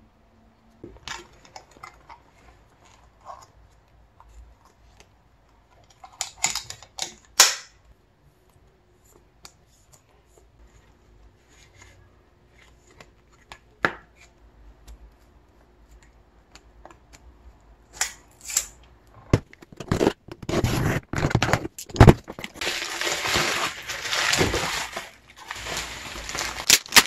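Scattered clicks and taps of photocards and a card holder being handled. About two-thirds of the way in, loud, dense crinkling of the clear plastic wrap on a vinyl LP album begins and goes on to the end.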